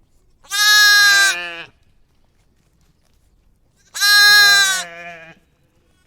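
Two loud bleats from a sheep or goat, about three seconds apart, each lasting a little over a second and fading out with a quieter, wavering tail.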